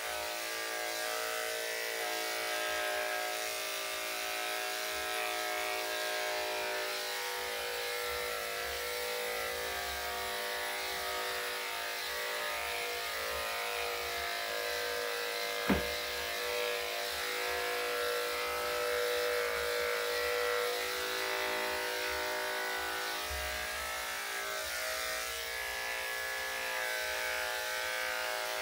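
Electric dog grooming clippers running with a steady hum. A single sharp click comes about halfway through.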